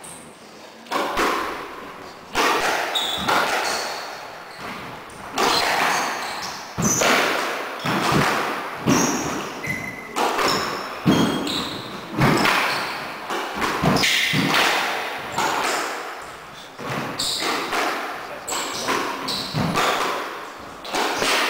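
A squash rally: the hollow rubber ball cracking off rackets and the court walls in a steady run of sharp hits, about one or two a second, each ringing in the enclosed court.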